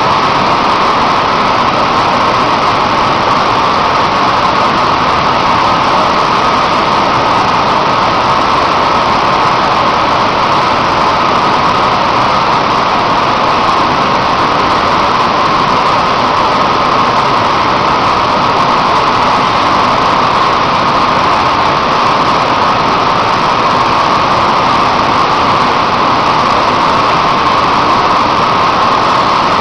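Steady, loud industrial roar of a steel melt shop's plant and machinery, unchanging in level, with no distinct knocks or events.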